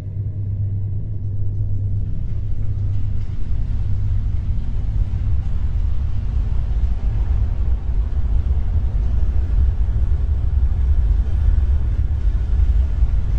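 A low, steady drone that fades out about two seconds in, as a deep, unsteady rumbling noise builds and carries on.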